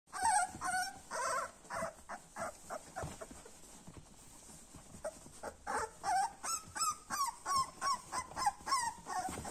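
Young Westphalian Dachsbracke puppies whimpering and squeaking in a string of short high-pitched cries. The cries come thick at first, thin out around the middle, then run on at a few a second near the end.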